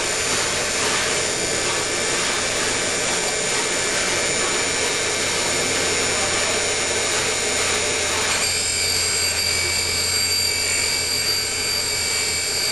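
Valve refacing machine running steadily with its grinding wheel and coolant, grinding the face of a Fiat 1200 engine valve: a constant motor hum under a dense hiss and high whine. About two thirds of the way through, the high whine grows stronger.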